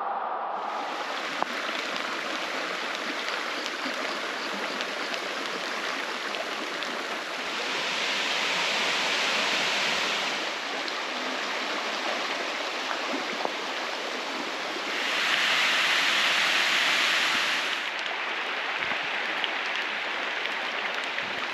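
Steady rush of a waterfall and river water, swelling louder twice.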